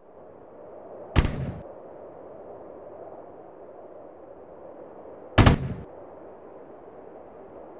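Two sharp bang sound effects about four seconds apart, each with a short tail, over a low steady rumble.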